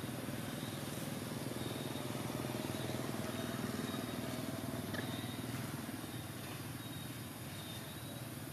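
A steady low motor hum, a little louder in the middle and easing off towards the end, with a faint thin high tone coming and going above it.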